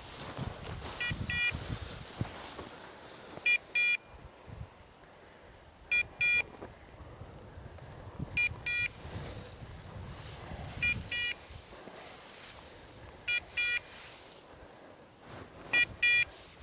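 Electronic dog-collar beeper sounding a short double beep about every two and a half seconds, seven times, over low background noise. This is a Dogtra collar on a hunting pointer, which lets the hunters track the dog in cover.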